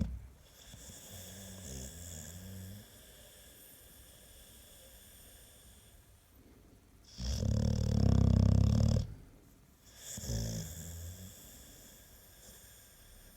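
American Staffordshire Terrier snoring. A quieter rattling snore comes in the first three seconds, then a loud snore of about two seconds some seven seconds in, followed by a shorter, weaker one.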